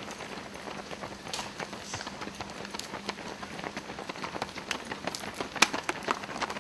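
Footfalls of several runners on an asphalt road, an irregular patter of shoe slaps, with one sharper tap about five and a half seconds in.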